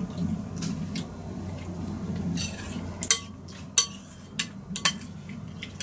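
Spoons scraping and clinking against soup bowls as two people eat soup, with four or five sharp clinks in the second half.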